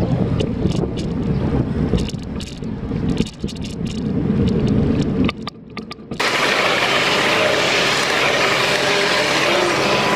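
Wind rumble on the microphone and rattling clicks from a folding bicycle being ridden over city pavement. About six seconds in, this gives way abruptly to a steady, loud hiss.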